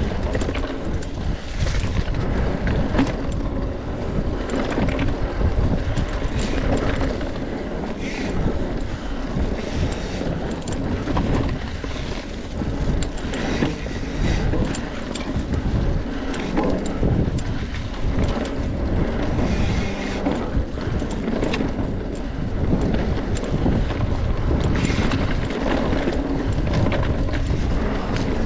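Wind buffeting a mountain bike rider's camera microphone, mixed with the constant rumble and rattle of the bike over a rough dirt trail.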